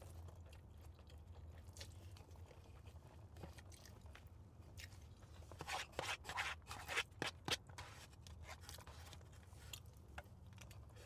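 Close-miked chewing and mouth noises of someone eating palabok noodles, over a low steady hum. About six seconds in comes a short run of sharp clicks and scrapes as the fork digs into the cardboard food box.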